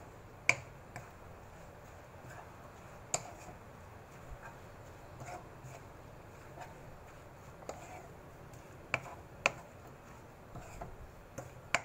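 A spatula tapping and scraping against a non-stick pan while stir-frying vegetables: irregular sharp clicks, the loudest about half a second in, around three seconds in, twice close together near nine seconds, and once at the very end.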